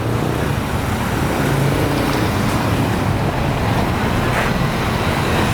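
Steady street traffic noise, with engines running close by.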